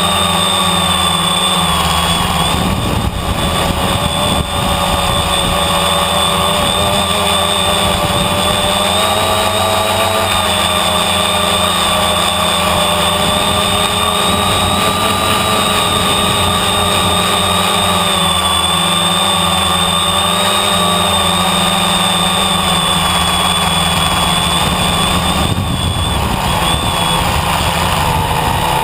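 Steady whine of a multirotor drone's electric motors and propellers, its pitch wavering slightly as it flies.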